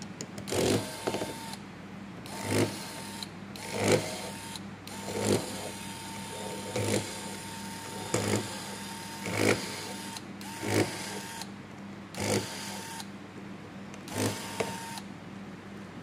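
Electric precision screwdriver whirring in short runs, about ten in a row roughly every one and a half seconds, each starting with a tick, as it backs out the small screws holding a smartphone's mid-frame. A steady low hum runs underneath.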